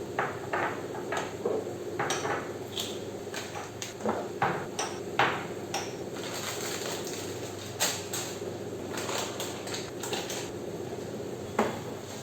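Kitchen utensils and containers clattering as they are handled and set down: a string of irregular clinks and knocks, over a steady background hum.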